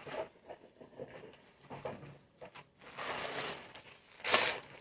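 A box and other objects being handled and shifted: scattered small knocks and rustles, a longer rustle about three seconds in, and a louder rustle near the end.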